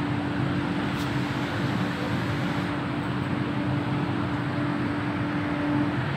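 Metro train running between stations, heard from inside the carriage: a steady rumble and rush of running noise with a held hum that stops near the end, and one light click about a second in.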